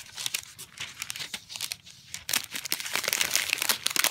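Frozen burrito's plastic wrapper crinkling as it is handled and torn open, sparser around the middle and busier in the second half.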